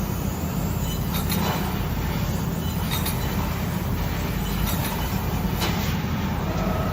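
Laser tube cutting machine running: a steady low mechanical drone with a few faint clicks.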